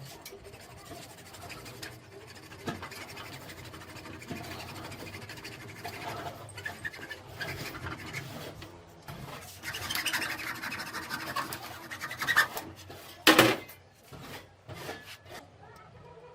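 Scraping and rubbing with scattered knocks, busier in the middle, and one short loud scrape about 13 seconds in.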